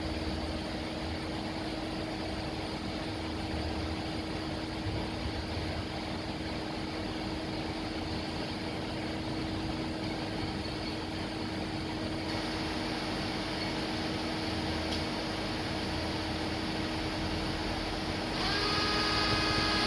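Mugatech TT-60 CNC lathe powered up, with a steady machine hum. About a second and a half before the end, a higher drive whine with several steady tones starts.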